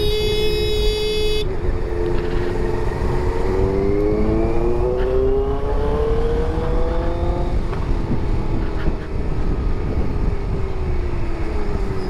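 A vehicle horn sounds for about a second and a half at the start. Then a motorcycle engine climbs steadily in pitch as it accelerates, and eases off and falls near the end, over steady wind and road rush.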